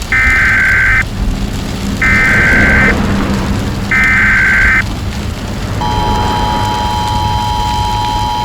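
Emergency Alert System SAME header: three harsh, buzzing digital data bursts, each about a second long and a second apart. About six seconds in, the steady two-tone EAS attention signal begins.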